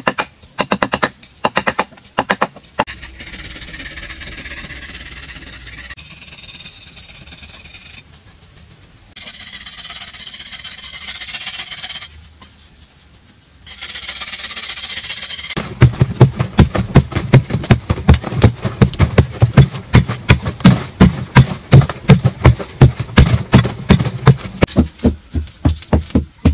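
Hand-tool work on packed clay: a few sharp hacking strokes, then stretches of scraping hiss with two short breaks. From about two-thirds of the way in, a long fast run of hard, evenly spaced knocks, several a second, takes over and is the loudest part.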